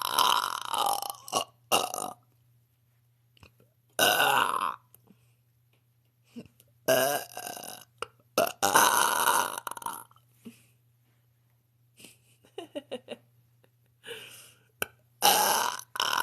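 A woman burping loudly on purpose, several long belches one after another with quiet gaps between them, the longest about nine seconds in.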